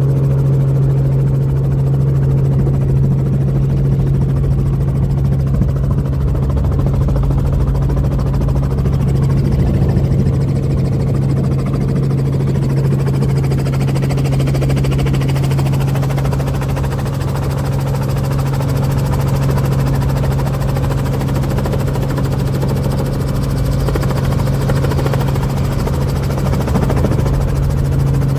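Helicopter engine and rotors running steadily, heard from inside the cabin as a constant low drone with a strong, unchanging hum, as the helicopter descends to land.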